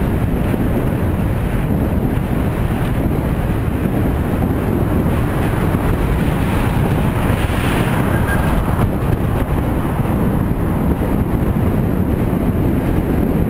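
Wind buffeting the microphone of a camera on a moving bicycle: a steady, loud rumble of wind and road noise, with the hiss rising briefly about seven or eight seconds in.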